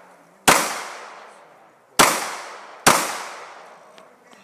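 Three handgun shots, the second about a second and a half after the first and the third under a second later, each sharp crack trailing off in a long fading echo.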